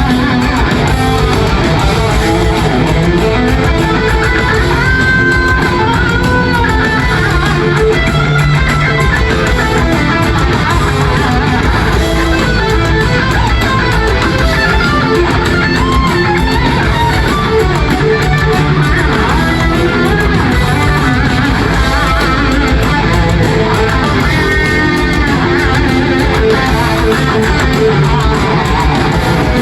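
Heavy metal music: a lead electric guitar line with pitch bends over rhythm guitar, bass and drums.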